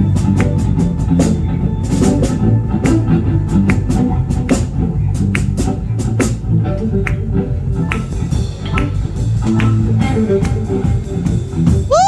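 Live band playing an instrumental groove: electric guitar over bass guitar and drum kit with regular cymbal hits. Near the end a note bends sharply up and back down.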